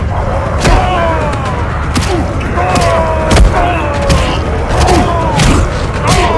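Loud heavy metal music, distorted and dense, with crashing drum and cymbal hits about every half second and bending guitar or growled lines over a heavy low end.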